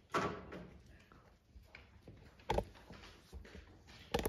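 Handling noises as a player settles onto a piano bench at a grand piano: a short scrape at the start, a single knock about two and a half seconds in, and a few sharp clicks near the end.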